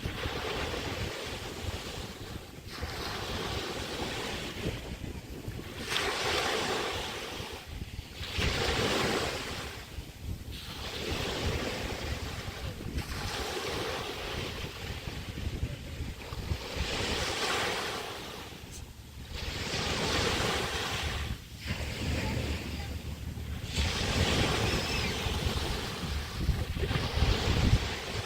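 Small Chesapeake Bay waves breaking and washing up the beach, one every two to three seconds, with wind buffeting the microphone in a low rumble that gets heavier near the end.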